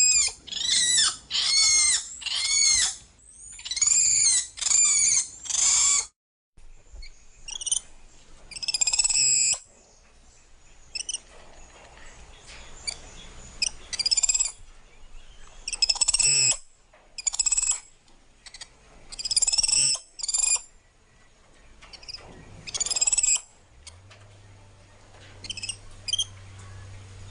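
Monkey calling: a quick run of high-pitched calls that each rise and fall in pitch, about one a second, then after a short break, scattered single calls and short bursts.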